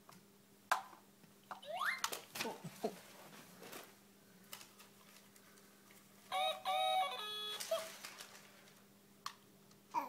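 A toy remote control's speaker plays a rooster crow, several short syllables and a held final note, about six seconds in, probably set off by a button press. Earlier a toddler makes a few short gliding vocal sounds.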